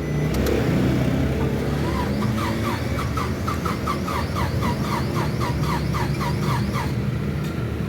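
Suzuki Wagon R's small three-cylinder petrol engine running with the AC on, starting to run a little louder just after the start. It has a misfire that makes the car vibrate, caused by oil-fouled spark plugs and weak ignition coils. Over it, from about two seconds in until near the end, comes a regular short rising chirp, about three a second.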